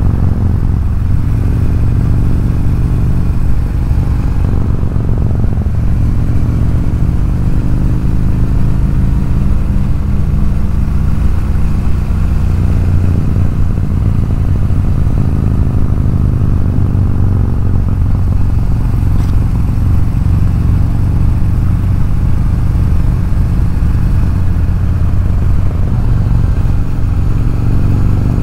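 Harley-Davidson V-twin motorcycle engine running steadily at cruising speed, its low, even drone heard from the rider's own bike.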